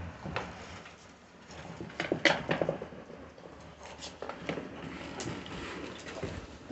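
Puppies moving about with their treats: scattered small clicks and taps, a cluster of louder ones about two seconds in.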